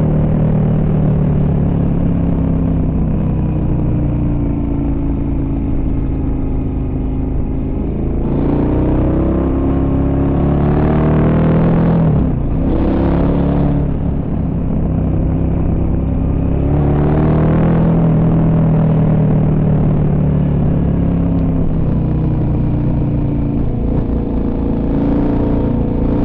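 Dual-sport motorcycle engine running under way, its revs climbing and falling with throttle and gear changes. There is a quick drop and pick-up about twelve seconds in.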